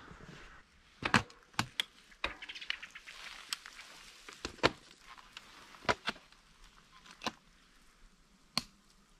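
A series of sharp, irregular clicks and taps close to the microphone, roughly one a second, over a faint hiss.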